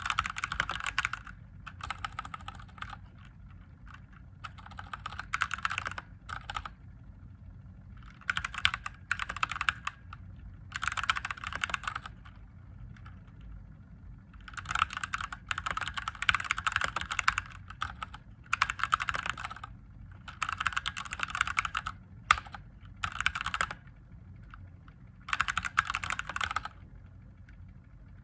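Typing on a mechanical keyboard with Gateron Yellow linear switches: bursts of rapid keystroke clicks with short pauses between them, over a steady low hum.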